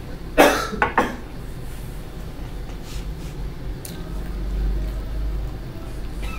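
Three sharp clicks in quick succession about half a second to a second in, then two fainter clicks a few seconds later, from hands working a computer mouse and keyboard. A steady low electrical hum runs underneath.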